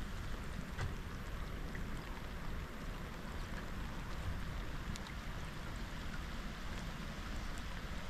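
Steady rain falling on lake water, an even hiss with scattered sharper drop ticks and a low rumble underneath.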